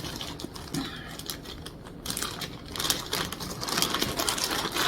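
A bag rustling and crinkling as it is handled and opened, with many small crisp clicks, busier in the second half.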